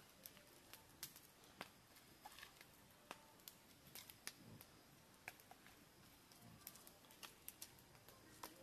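Faint crackling of a small stick campfire: irregular sharp snaps and pops, a few a second.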